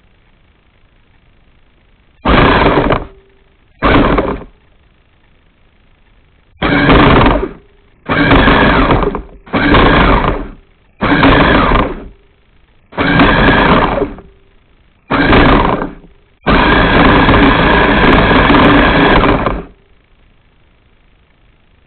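Domestic cat hissing defensively in nine loud bursts, most under a second, the last drawn out for about three seconds.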